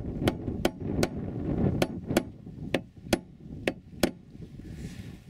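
Small hammer tapping a centre punch, made from an old tap, against the steel wiper mounting point to mark the centre for drilling. About nine light metallic taps, roughly two a second, stopping about four seconds in.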